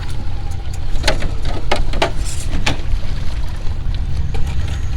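Steady low rumble with a few sharp clicks and knocks between about one and three seconds in, as an RC rock crawler clambers over rocks.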